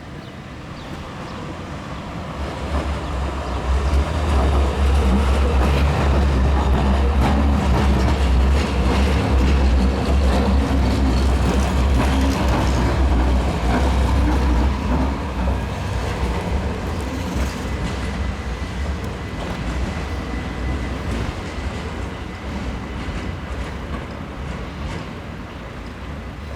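SIG high-floor light-rail tram passing by on rails: it rumbles louder as it approaches, stays loud for about ten seconds, then fades away.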